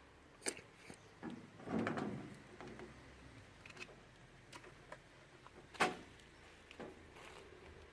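Scattered light clicks and knocks of tools and parts being handled while a washing machine is taken apart, the sharpest about six seconds in.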